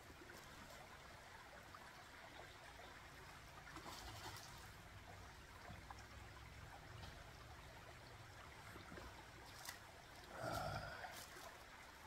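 Faint, steady rush of a shallow creek running over stones, with a few light clicks. A short, louder low sound comes about ten seconds in.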